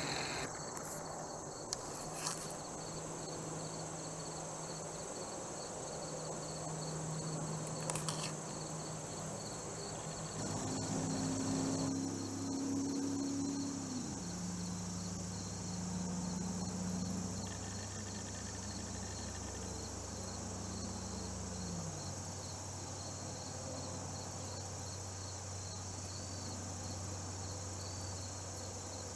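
Steady chorus of crickets and other insects: a continuous high buzz with a fast pulsing chirp above it. In the middle a low humming drone rises and falls away in pitch, ending about two-thirds of the way through, and a few faint clicks come early on.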